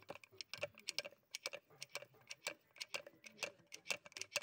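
Quick, uneven metallic clicking, several clicks a second, as a hand tool is worked back and forth on the drive-end nut of a Tata Sumo starter motor.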